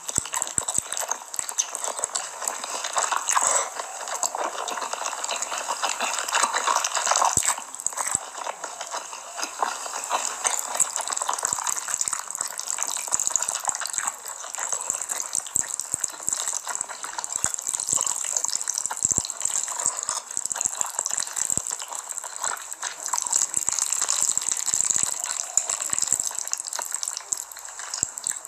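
Close-miked wet chewing of saucy food, spicy stir-fried bamboo clams and black bean sauce noodles: a continuous stream of sticky, squelching mouth sounds made of many small clicks.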